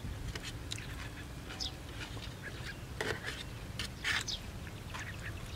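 A metal spoon clicking and scraping in a metal tray of noodles and vegetables, with chewing. The strongest clicks come about three and four seconds in, over a steady low rumble of wind on the microphone.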